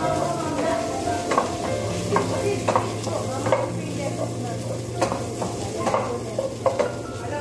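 Food-prep sounds: leafy greens handled over a stainless steel bowl, with irregular light clinks and rustles about once or twice a second, over a steady low hum.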